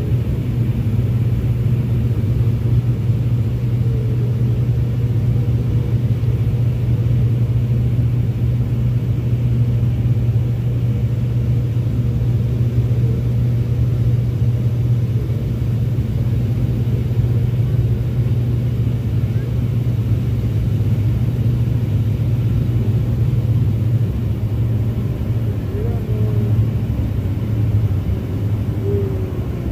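Cabin noise of a Fokker 50 turboprop airliner heard from a window seat during landing: the steady low drone of its propellers and engines, with an even low hum that does not let up.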